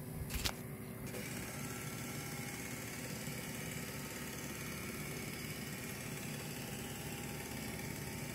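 Canon LiDE 210 flatbed scanner running a scan, its motor drawing the scan head steadily across the page. A single click comes about half a second in, and the steady motor sound starts about a second in.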